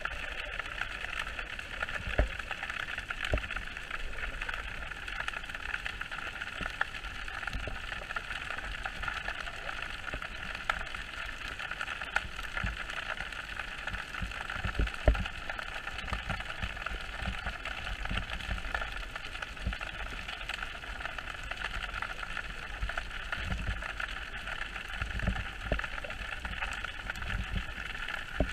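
Underwater ambience picked up by a camera in its waterproof housing: a steady muffled hiss with scattered small clicks and frequent low thumps.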